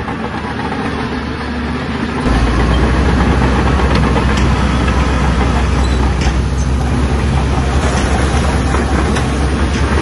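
Shantui crawler bulldozer's diesel engine running hard, with a few sharp knocks; the engine note steps up and gets louder about two seconds in.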